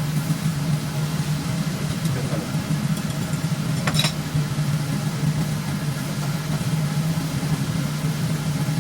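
Steady low motor hum with a hiss behind it, and one sharp metallic clink about four seconds in.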